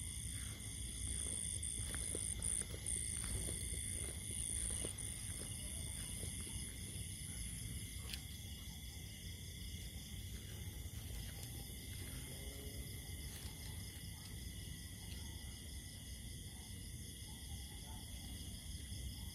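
Steady night chorus of insects such as crickets, a pulsing high-pitched trill, over a low rumbling noise, with a few light ticks in the first five seconds.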